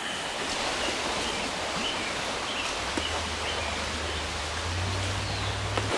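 A creek running steadily: a constant, even rushing hiss. A faint low hum joins it about halfway through.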